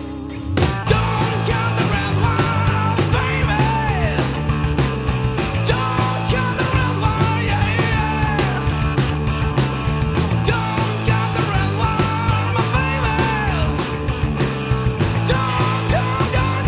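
Rock music from a band recording. About half a second in, the full band comes in over a held guitar note, and drums and bass keep a steady driving beat under a bending lead line.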